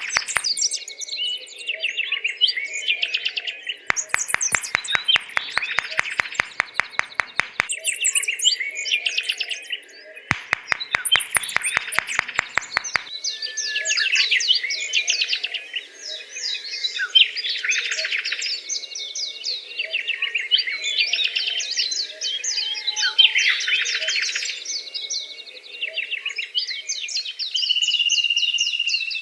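Many small birds chirping and twittering, with short, rapid trills. There are bursts of fast, even clicking a few seconds long, twice in the first half.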